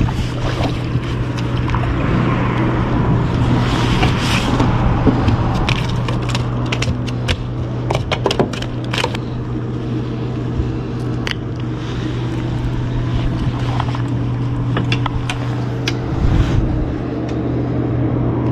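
A steady low motor hum from the boat, with scattered clicks, crackles and the crinkle of a plastic bag as a crappie is fought, handled and landed by hand.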